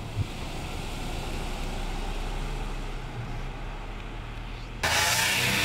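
Vehicle engine running with road and tyre noise from inside a moving car on a bush track. Near the end a loud hiss cuts in for about a second and stops abruptly.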